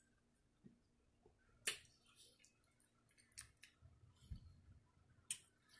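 Near silence with a few short, sharp clicks, two of them plainer than the rest, one about two seconds in and one near the end.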